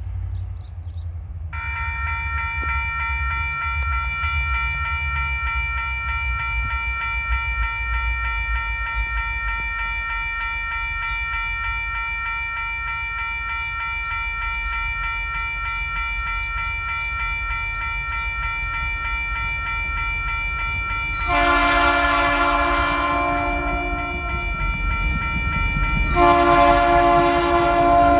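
Level-crossing warning bell ringing steadily from about a second and a half in, over the low rumble of an approaching TasRail 2050-class diesel locomotive. Near the end the locomotive sounds its multi-tone horn twice: a blast of about two seconds, then a second blast still sounding as the locomotive reaches the crossing.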